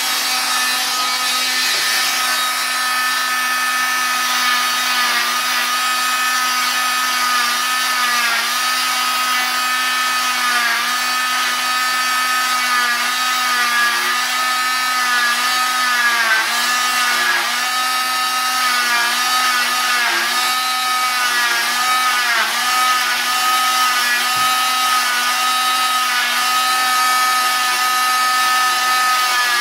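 Oscillating cast saw cutting a fiberglass leg cast: a steady high whine whose pitch sags briefly and recovers every second or two as the blade is pressed into the cast and eased off.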